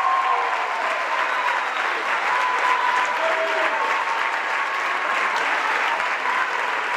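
Theatre audience applauding steadily, with some voices cheering over the clapping.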